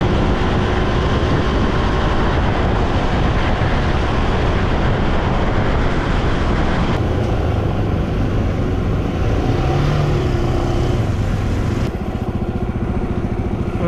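Motorcycle engine running under a loud rush of wind on the microphone at highway speed. After about seven seconds the wind drops, and the engine's fast, even firing comes through more plainly.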